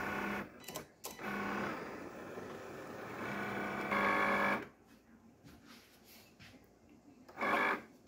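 Cricut Explore Air 2 cutting machine running its poster-board cut: a steady motor whir, changing pitch in steps as the carriage and mat move. It falls quiet about four and a half seconds in, then gives a short whir near the end.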